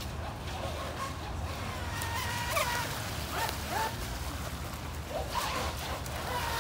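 Remote-controlled model boat's motor whining across the pond, its pitch rising and falling in short glides as the throttle changes.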